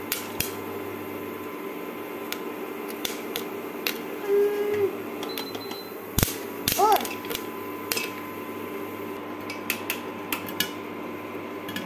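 Popcorn kernels popping in hot oil in a pressure-cooker pan, scattered sharp pops about one or two a second as the first kernels start to burst, over a steady hum.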